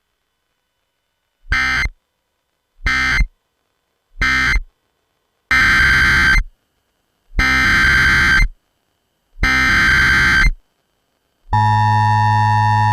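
Emergency Alert System SAME data bursts: three short buzzing digital bursts, typical of the end-of-message code closing one warning, then three longer bursts, typical of the header of the next warning. About eleven and a half seconds in, the steady EAS attention tone starts and holds.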